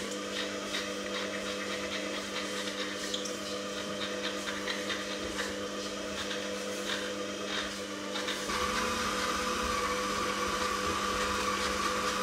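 Electric stand mixer running with its K-beater, creaming butter and sugar: a steady motor hum that grows a little louder, with a higher whine added, about eight and a half seconds in. Faint rasping strokes of a handheld lemon zester over it.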